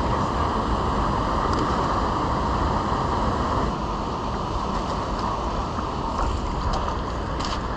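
Steady rush of river current, with wind buffeting the microphone. A hooked fish splashes at the surface a few times near the end.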